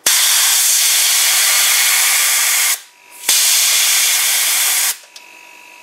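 Compressed air hissing out of a small air compressor's tank in two long blasts with a short break between, dropping the pressure. About five seconds in the hiss stops and the converted refrigerator compressor that pumps the tank starts running, a quiet steady hum.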